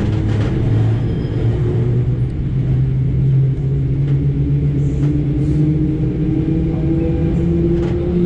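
Electric suburban train pulling away from a station, heard from inside the carriage. The traction motors hum with a slowly rising pitch over a steady rumble as the train gathers speed.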